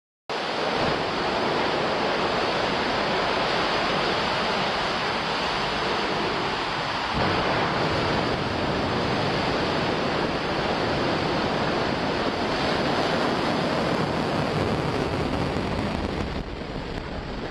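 Soyuz-2.1b rocket's engines firing at liftoff: a loud, steady rushing noise like heavy wind. It starts abruptly and fades off near the end.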